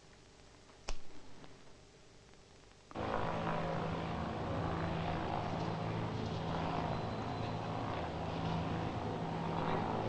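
A single sharp click about a second in. Then, starting abruptly about three seconds in, the steady hum of a Goodyear blimp's propeller engines running overhead.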